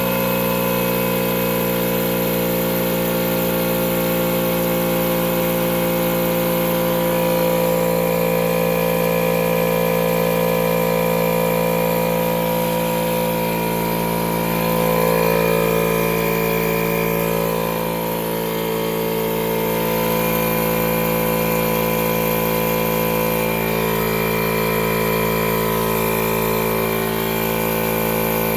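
Milwaukee battery-powered portable air compressor (tire inflator) running steadily, pumping up a flat mower tire toward a preset 25 psi.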